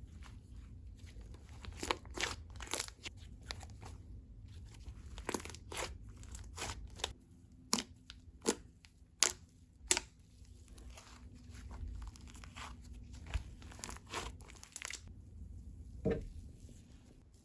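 Soft cloud-cream slime being squished and stretched by hand, giving off irregular crackles and sharp pops, with a few louder pops about halfway through and one more near the end.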